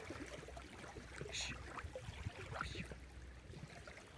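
Faint outdoor sea ambience: a low rumble with light water sounds and a few small scattered knocks.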